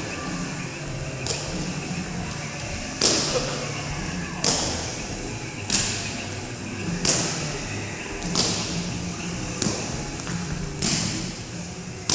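Jump rope slapping the gym floor during double-unders, one sharp slap about every 1.3 seconds, over a low steady background hum.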